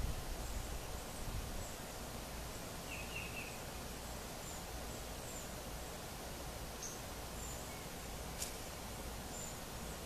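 Outdoor ambience: a steady background hiss with faint, scattered short bird chirps, a brief cluster of chirps about three seconds in, and a single faint click near the end.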